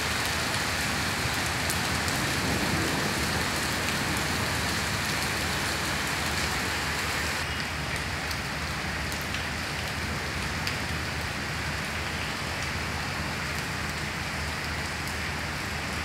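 Steady rain falling on a wet brick-paved lane and trees, with scattered sharper drop hits; it eases slightly about halfway.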